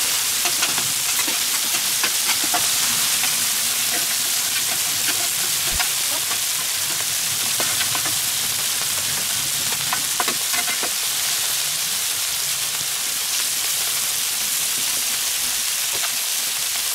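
Vegetables and chicken skewers sizzling steadily on a hot steel griddle plate ringed around a wood fire, with a metal spatula scraping and clicking against the plate now and then.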